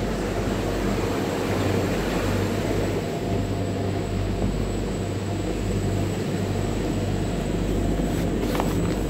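Motor vessel Ali Cat's engines running with a steady low drone and hum, heard from inside the passenger cabin.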